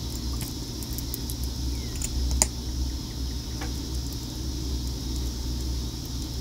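Light plastic clicks and taps from handling a lip gloss tube and its applicator wand, the sharpest about two and a half seconds in, over a steady low hum.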